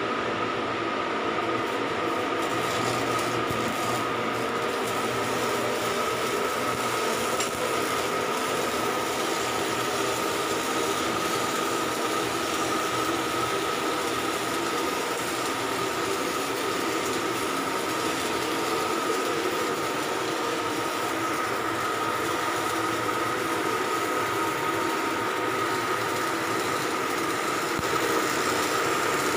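Steady, dense machinery noise with a constant high whine running underneath, typical of a ship's engine room; it gets a little louder near the end.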